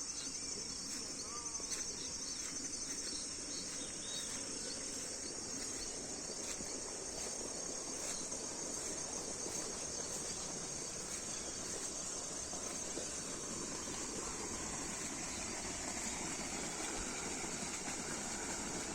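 A steady, high-pitched insect chorus of crickets trilling without a break. A few faint bird chirps come in the first few seconds, over a soft background rush.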